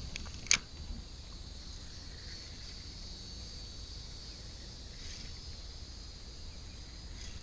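Steady high drone of insects, with a sharp click about half a second in.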